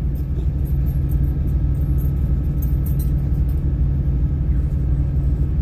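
Semi-truck's engine running, heard inside the cab as a steady low rumble.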